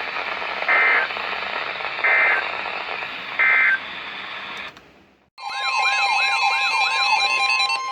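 Three short digital data bursts, just over a second apart, over the hiss of a weather radio receiver: the SAME end-of-message code that closes a NOAA Weather Radio warning. After a brief drop to silence, an electronic alert tone starts about five seconds in, a warbling sweep over steady tones.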